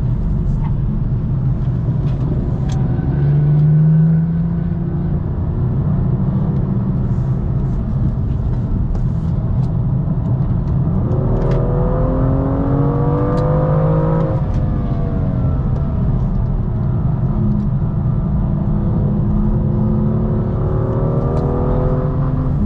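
BMW M2 F87 straight-six engine pulling under throttle, heard from on board over steady road and tyre noise. Its note climbs in pitch about halfway through and falls away, then climbs again near the end.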